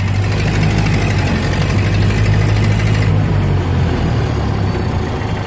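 1930 Ford Model A's four-cylinder flathead engine running with a steady low hum, heard from inside the car. About three seconds in its sound grows softer and duller.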